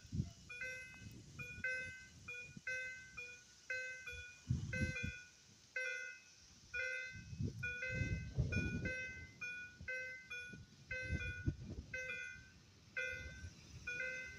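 Electronic level-crossing warning signal chiming steadily, about two notes a second, with irregular low thumps underneath.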